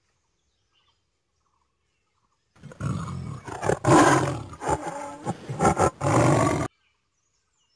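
Tiger roaring: a run of deep, loud roars starting about two and a half seconds in after silence, loudest in the middle, and cutting off abruptly near the end.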